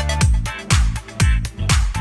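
Upbeat electronic dance background music with a steady kick drum beating about twice a second.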